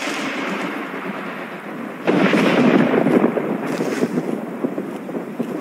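Storm ambience: a steady rush of wind and rain, growing louder about two seconds in.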